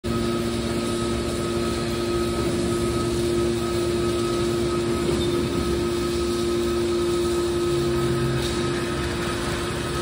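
Hydraulic metal baler running: a steady drone and whine from its hydraulic pump and motor while the cylinders close the lid over the press box.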